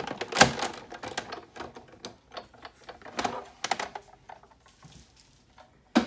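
Sizzix Big Shot die-cutting machine cranked by hand, rolling a stack of magnetic platform, acrylic plates and a steel die through its rollers: a run of irregular clicks and knocks, the loudest about half a second in, thinning out after about four seconds. A sharp knock comes near the end.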